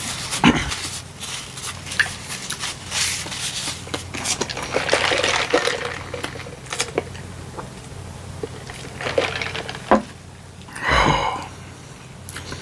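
Close-miked eating sounds: wet chewing and mouth clicks, irregular and wet-sounding, with a brief vocal sound about eleven seconds in.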